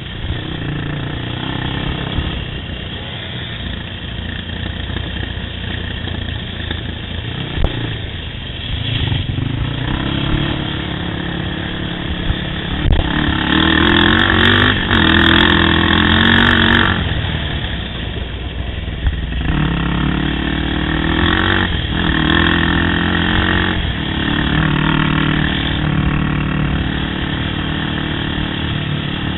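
Yamaha YFZ450 sport quad's single-cylinder engine running under load on a trail, with throttle changes throughout. It is louder in two stretches of hard acceleration, about halfway through and again a few seconds later, the pitch climbing and then dropping.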